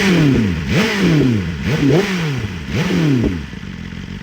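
Motorcycle with an aftermarket LeoVince exhaust revved in four quick throttle blips, each rising sharply and falling away, then dropping back to idle near the end.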